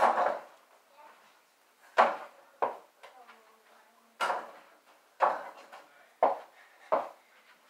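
Small rubber ball hitting a mini basketball hoop's backboard and being bounced on the floor: a string of sharp thuds, the first one longer, and the later ones coming about once a second.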